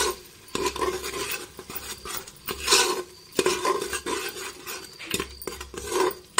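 Steel ladle stirring and scraping a thick masala paste across the bottom of an aluminium pressure cooker, with metal clinks, in irregular strokes. The paste sizzles faintly as it fries in oil.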